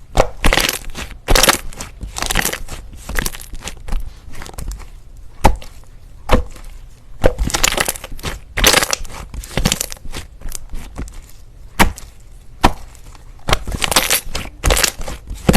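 Slime being worked, with sharp pops and clicks and bursts of crunchy crackling that come unevenly, one or two a second.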